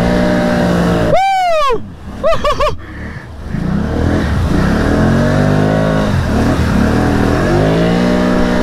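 ATV engines revving and labouring through mud, swelling again from about three and a half seconds in. A loud falling whoop comes about a second in, and a few quick short whoops follow about a second later.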